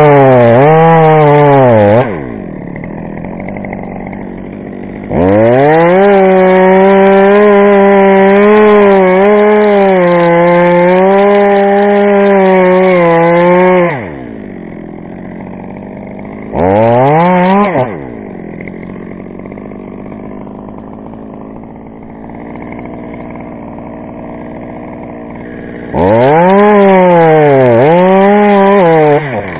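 Chainsaw revving to full throttle four times, the longest burst about nine seconds, dropping back to idle in between; its pitch wavers during each burst as it cuts poplar.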